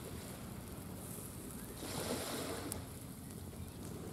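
Small sea waves washing on the shore, one swelling up about two seconds in.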